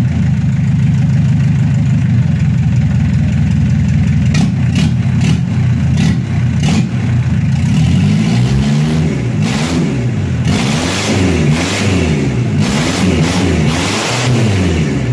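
Mitsubishi 4D56 four-cylinder diesel engine, out of the vehicle on a stand, being test-run: it idles steadily, then is revved up and down about five times in quick succession. A few sharp clicks come about a third of the way in.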